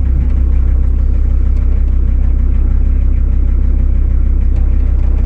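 Car engine running at low speed, heard from inside the cabin as a steady low rumble.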